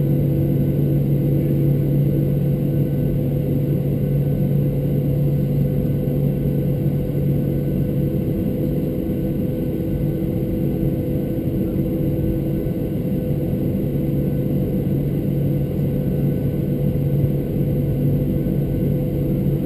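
Boeing 737-600's CFM56-7B jet engines running at taxi idle, heard inside the passenger cabin as a steady low drone with a few constant hum tones.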